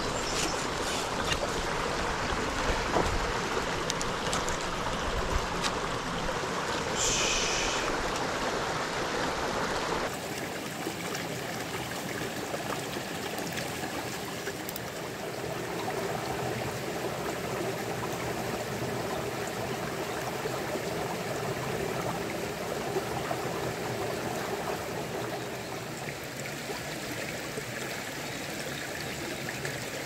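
A small mountain creek running over rocks: a steady rush of water. About ten seconds in the water sound shifts abruptly and loses its deep rumble, and there is a short hiss a little before that.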